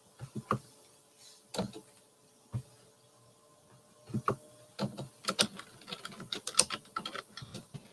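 Typing on a computer keyboard: a few scattered key clicks, then a quick, dense run of keystrokes from about four seconds in.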